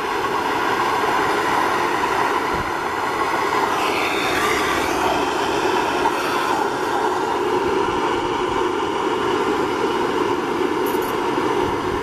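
Steady rushing of a blower on its lowest setting, forcing air into a homemade charcoal-fired bucket furnace so that the fire burns hotter.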